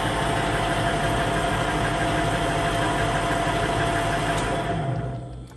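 Super-Precision SOM-461 turret lathe running steadily in reverse, with a faint steady whine, then switched off about four and a half seconds in and winding down.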